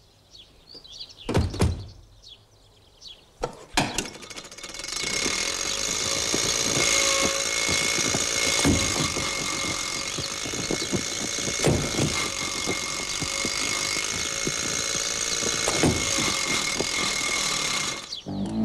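Sound effect of an old open car's engine in a stop-motion cartoon. A few knocks and clicks come first; about four and a half seconds in, the engine starts and runs steadily as a noisy rattle with a steady high tone, stopping just before the end.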